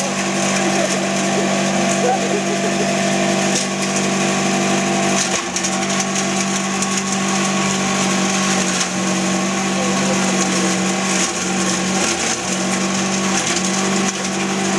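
Leaf chopper-grinder machine running steadily with a constant hum, its blades shredding fresh green leaves and branches as they are fed in. The hum dips briefly a few times as the machine takes the load.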